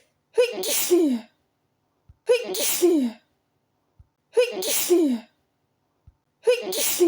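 A woman sneezing loudly four times, about two seconds apart. Each sneeze opens sharply and ends in a voiced 'choo' that falls in pitch. A faint low tap comes just before each sneeze, and the last one is cut off at the end.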